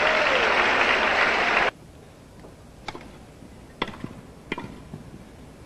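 Crowd applauding, cut off abruptly about a second and a half in. Then a quiet court with a few sharp knocks of a tennis ball, a little under a second apart.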